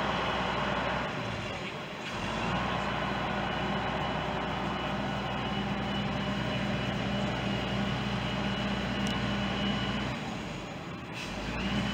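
Aerial tower fire truck's engine and hydraulics running steadily while the boom swings the platform, a steady mechanical hum that eases off briefly about a second in and again near the end.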